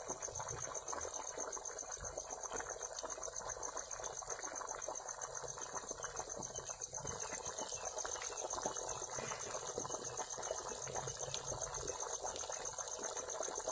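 Mutton curry boiling hard in a kadhai over a wood fire: a steady bubbling with small pops. A high, steady insect trill runs through it.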